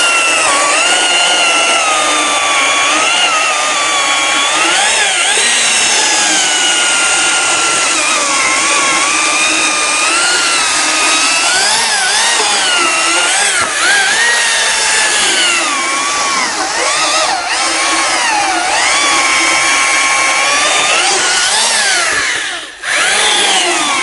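Stihl MSA 300 battery chainsaw cutting wood at its top chain speed in branching mode: a high electric-motor whine whose pitch sags and recovers as the chain bites into the wood. It drops out briefly near the end, then picks up again.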